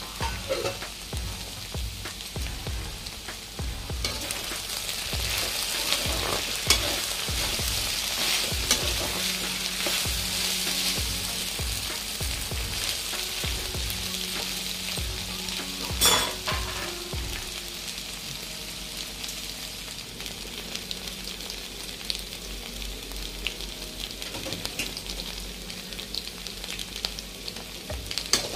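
Halved ivy gourds and green chillies sizzling steadily in hot oil in a kadai, with a slotted spatula stirring them, scraping and knocking against the pan. Two sharper knocks stand out, one about a quarter of the way in and one a little past halfway.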